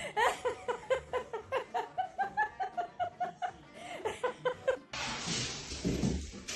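A person laughing in quick, repeated bursts, several a second. About five seconds in, the laughter gives way to a sudden, steady rushing noise.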